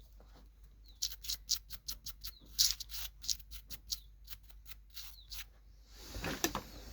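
A run of light, sharp clicks and taps, irregularly spaced and densest in the first half, from small phone parts and tools being handled while the repaired board is fitted back in.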